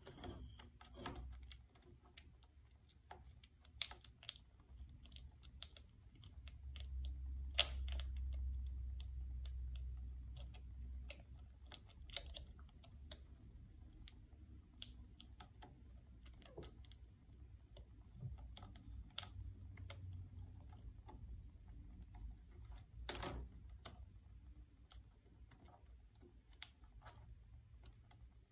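Scattered plastic clicks and taps from an HP dv6 laptop keyboard being handled and pressed into its bay, its keys clacking under the fingers. Sharp clicks stand out about a quarter of the way in and again past the three-quarter mark, and a low rumble swells for a few seconds around the first of them.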